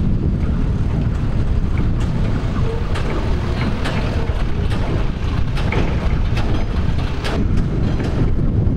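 Wind buffeting the microphone, a steady low rumble, with a series of sharp metallic clicks and knocks from about three seconds in.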